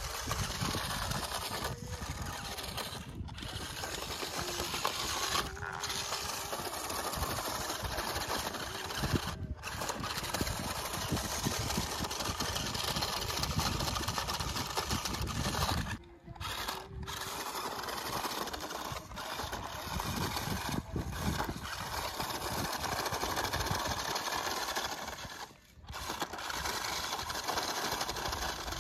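Electric motor and gearbox of a toy 4WD RC rock crawler whining as it climbs a rocky slope, its tyres crunching over loose gravel. It drops out briefly a few times, most clearly twice in the second half.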